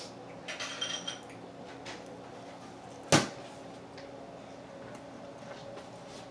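One sharp, loud knock about three seconds in, after a brief light clatter near the start, over a low steady hum.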